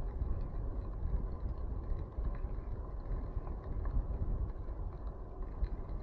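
Wind buffeting the microphone over the low rumble of bicycle tyres rolling along a rough dirt path, with faint small ticks and crunches from the surface.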